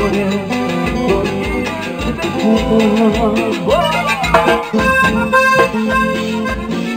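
Live band playing with a button accordion carrying the melody over guitars and a steady drum beat; about five seconds in the band hits a run of short repeated chords.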